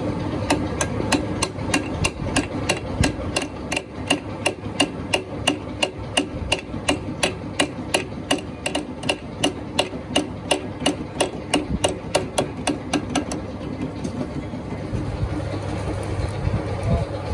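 Fast, even hammer strikes on metal, about four a second, that stop about thirteen and a half seconds in. A steady machine drone runs underneath throughout.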